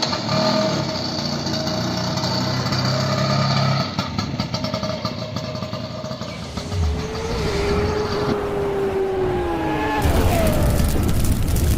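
Bajaj Chetak scooter's two-stroke engine running and revving, its pitch sliding down from about seven to ten seconds in. The sound changes abruptly a few times, as between joined clips.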